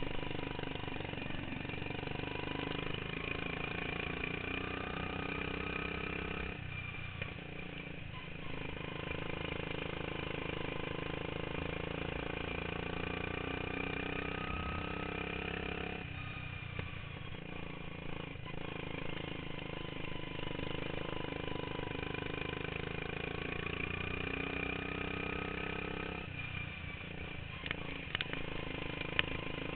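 Modified racing lawn mower's engine running hard, heard from on board the mower; it eases off briefly three times, about every nine to ten seconds, and a few sharp clicks come near the end.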